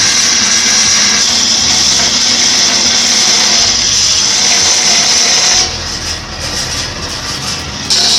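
An electric power tool running steadily on wood with a loud, high-pitched whine. The whine drops away for about two seconds near the end, then comes back.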